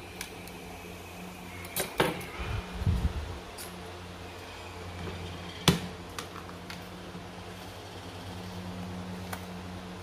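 Metal hard-drive caddy brackets and screws being handled and set down on a laptop: a few sharp clinks about two seconds in, a dull handling thump just after, and another sharp clink near six seconds, over a steady low hum.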